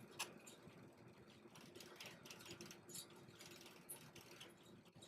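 Near silence: faint, scattered light ticks and taps from handling makeup, over a faint steady hum.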